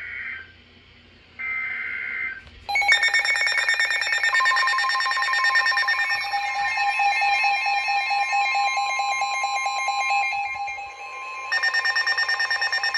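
Emergency alert signal: short bursts of warbling SAME header data tones, then from about three seconds in a loud, steady alert tone with a fast pulsing beep over it. Near the end it changes to a different, sharper beeping. It comes ahead of a flood warning.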